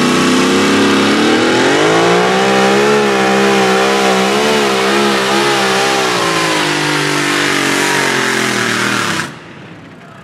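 Two-wheel-drive pulling truck's engine running flat out during a pull. Its pitch rises about a second and a half in, then wavers up and down, and the sound cuts off suddenly near the end.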